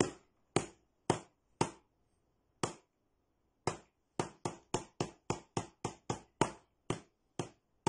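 Hairbrush tapping a small box, playing a 3/4 rhythm exercise. The taps come about half a second apart at first, with gaps for rests, then a quicker run of about four taps a second for the eighth notes, then slower taps again near the end.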